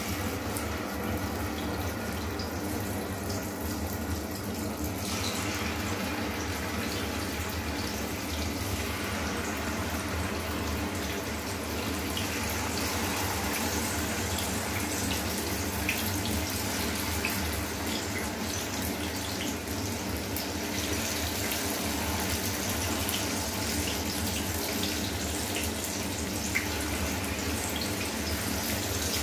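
Marinated chicken pieces shallow-frying in hot oil in a pan: a steady sizzle with scattered small crackles, growing fuller about five seconds in as more pieces go into the oil.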